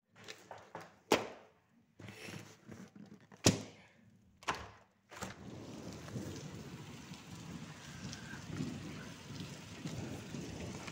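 Three sharp knocks as a plastic-framed window is handled and pushed open. From about five seconds in comes a steady hiss of rain falling outside the open window.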